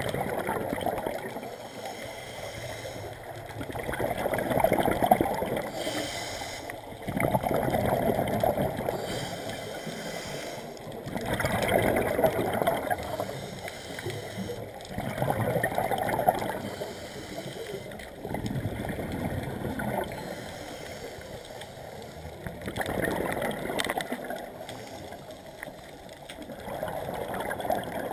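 Scuba regulator breathing underwater: a rush of exhaled bubbles about every four seconds, with quieter stretches between breaths.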